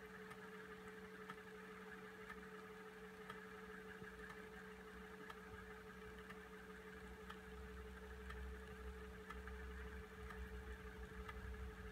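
5.25-inch floppy disk drive spinning a diskette while reading it: a low steady motor hum, with a faint tick about every two seconds.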